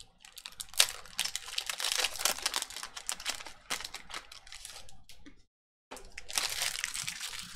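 Trading card pack wrapper being torn open and the cards inside handled: a dense run of crinkles, rustles and small clicks. The sound cuts out completely for about half a second a little past the middle.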